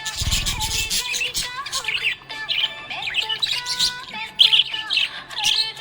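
Budgerigars chirping and twittering continuously in quick, rapid calls, over soft background music with held notes. A brief low rumble sounds in the first second.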